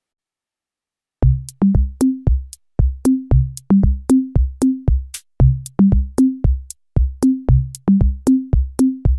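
Electronic background music starting after about a second of silence: a drum-machine beat of kick drum hits with short pitched bass notes and crisp clicks, about two to three hits a second.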